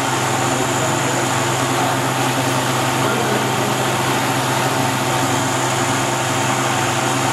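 Van de Graaff generator running: a steady, unchanging motor hum.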